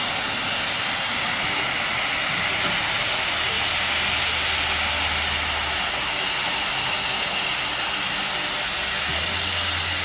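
Steady hiss of steam escaping from Victorian Railways K-class 2-8-0 steam locomotive K163, with a low hum that comes in about two and a half seconds in, drops out about six seconds in, and returns near the end.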